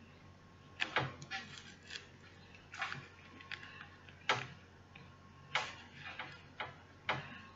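Hand-sewing a hair weft onto a wig cap with needle and thread: about a dozen irregular sharp clicks and brief scratchy rustles as the needle goes through the weft and the thread is pulled.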